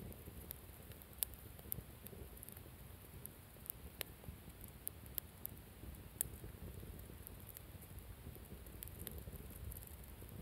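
Wood campfire burning: irregular sharp crackles and pops, a few louder snaps among them, over a low steady rumble.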